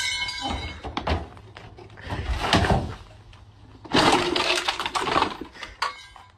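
Car front-end parts being wrenched off by hand, the plastic and metal of the grille and radiator cracking and breaking in three loud bursts with sharp snaps between them.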